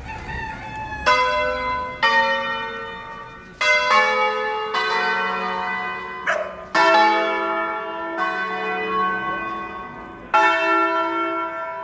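Church tower bells of several pitches, struck one after another at uneven intervals of about one to two seconds. Each stroke rings on and fades before the next.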